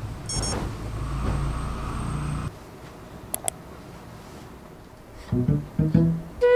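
A comforter being shaken out and spread over a bed: a rush of fabric noise that stops abruptly after about two and a half seconds. About five seconds in, background music with plucked guitar notes begins.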